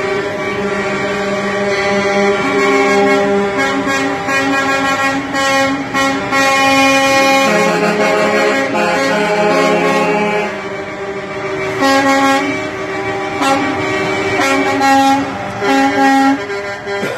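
Air horns of passing semi-trucks blowing almost without a break, several horns of different pitches overlapping into shifting chords, with a deeper horn chord for a few seconds in the middle and short dips near the end.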